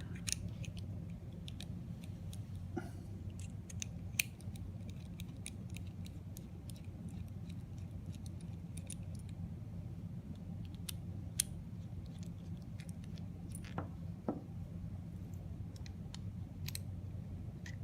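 Scattered small clicks and taps of a hand tool and spray-chamber parts being handled while the nebulizer is worked loose, over a steady low hum.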